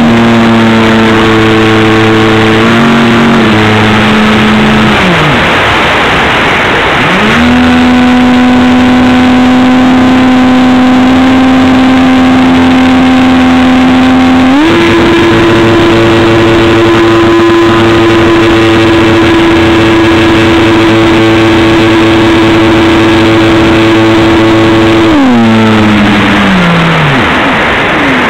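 Electric motor and propeller of a Stryker F27C RC flying wing, heard from a camera on board: a steady whine that falls in pitch as the throttle is eased just after the start, then cuts out to leave rushing air for a couple of seconds. It comes back, steps up in pitch about halfway through, and winds down again near the end, leaving wind noise.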